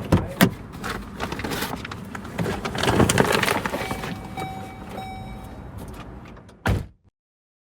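Car sounds: clicks and knocks of a car door and someone moving about, with a brief steady electronic tone in the middle. It ends with a loud door thump, then cuts off suddenly.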